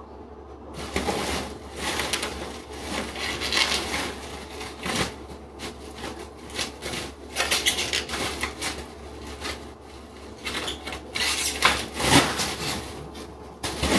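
Plastic bubble wrap crinkling and rustling in irregular bursts as a sheet is pulled and bunched off a large roll by hand.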